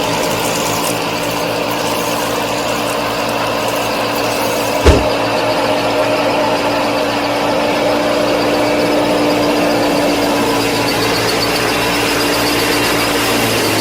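Small motor of a DIY mini combine harvester and thresher running steadily with a high drone, and a single sharp knock about five seconds in.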